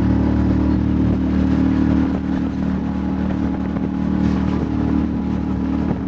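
Small motorboat's engine running steadily at a constant pitch while under way, with the rush of water and wind.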